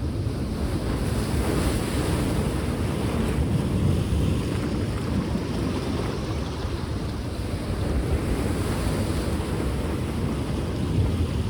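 Black Sea waves washing onto the shore in a steady surf, with wind rumbling on the microphone underneath.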